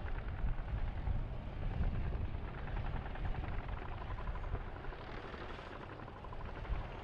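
M1A2 Abrams tank driving past over rough ground: a steady low rumble of its gas-turbine engine and tracks, with a fine rapid clatter over it, easing slightly toward the end.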